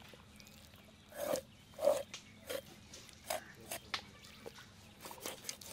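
Knife slicing into the skin of a raw whole duck and knocking on a wooden chopping block: a run of short, soft cuts and taps, the loudest two about a second and two seconds in.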